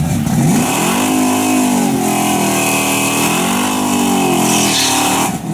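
A 383 small-block Chevy V8 in a drag-race Chevrolet Nova revving hard through a burnout while the rear tyres spin in smoke. The revs climb sharply about half a second in, waver up and down while held high, then drop off suddenly near the end.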